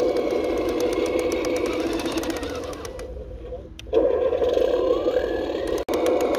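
Cross RC KrAZ 260 1/12 scale six-wheel RC truck running with a steady mechanical drone. It sinks between about three and four seconds in, then surges back. A rising whine comes in near five seconds, and the sound breaks off for an instant just before six.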